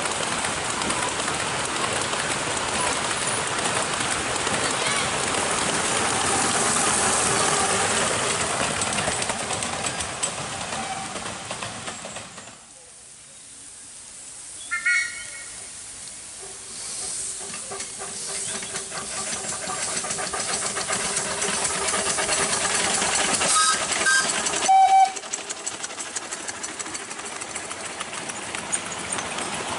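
Miniature-railway train running past, then a small steam locomotive hissing steam and sounding short whistle blasts, one about halfway through and two close together near the end, the loudest sounds here.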